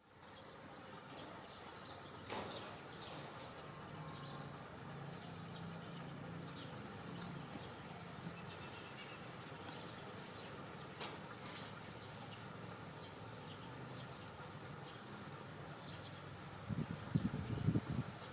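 Faint outdoor ambience with many short, high chirps scattered throughout. A low hum runs through the middle, and a cluster of low thumps about a second before the end is the loudest part.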